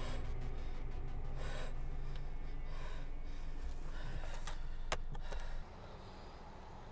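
A woman's gasping breaths over the low rumble of a car cabin, then a single sharp click just before five seconds in as the sun visor is flipped. The level then drops suddenly to a quieter, steady hiss.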